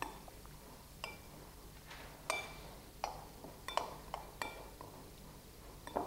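A spoon stirring a quinoa salad in a clear glass bowl, with light clinks of the spoon against the glass about once a second.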